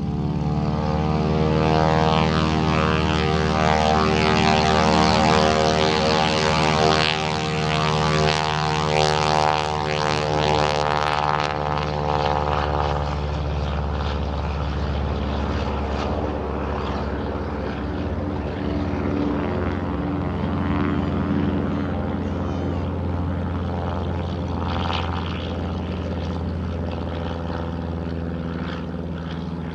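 Vintage single-engine propeller airplane at full power on its takeoff roll, lifting off and climbing away. The engine and propeller drone is loudest in the first several seconds and eases off as the plane draws away.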